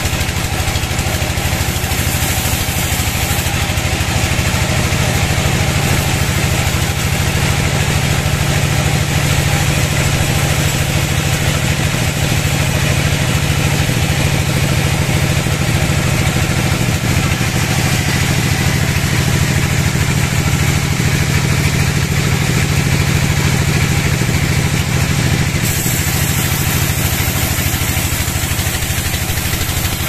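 Sawmill log band saw running steadily while its blade rips lengthwise through a large teak log: a steady machine drone with the hiss of the blade cutting the wood.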